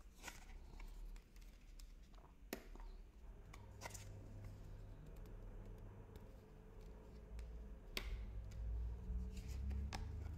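Minchiate Fiorentine tarot cards being dealt from the deck and laid on a cloth, with about five sharp card snaps and taps spread out. A low hum comes in about three seconds in.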